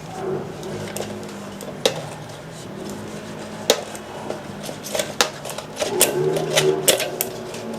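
Bicycle tyre bead being worked into the wheel rim by hand with a twisting motion: rubber rubbing on the rim, with several sharp clicks and snaps at irregular intervals.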